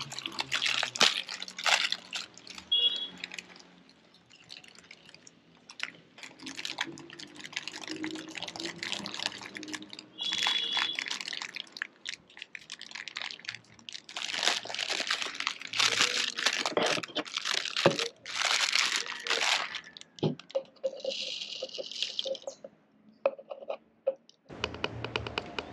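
Dry rolled oats rustling and rattling as a plastic bag of them is handled and the oats are poured into a small plastic measuring cup, then tipped into a plastic blender cup. The sound comes in irregular stretches, loudest a little past halfway.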